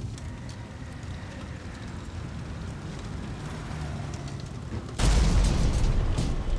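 A low rumble, then a sudden loud explosion about five seconds in, its blast continuing to the end.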